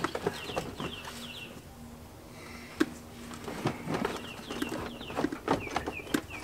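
Scattered clicks, knocks and rattles of the truck's plastic dashboard and air-conditioner housing being handled and worked loose, with one louder knock near the middle. Two runs of short, high, falling chirps, several a second, sound alongside.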